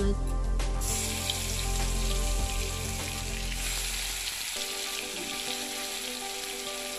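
Onion pieces frying in hot oil in a wok, a steady sizzle that sets in suddenly about a second in.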